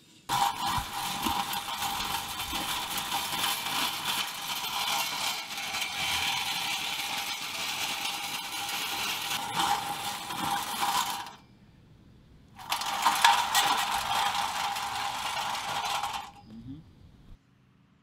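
Chain-and-rubber tread belts of a pedal-driven wheel-less bicycle scraping and rattling over pavement as it is ridden: a loud, harsh screech. It runs for about eleven seconds, stops for about a second, then returns for about four seconds before fading out.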